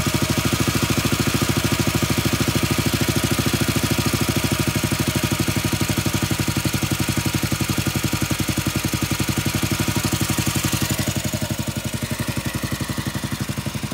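Single-cylinder motorcycle engine idling steadily with an even, regular beat while a screw on its carburettor is turned with a screwdriver to tune the idle.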